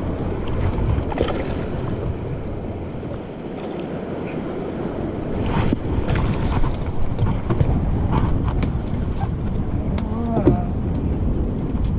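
Wind blowing across the microphone over the wash of surf, with a few light clicks.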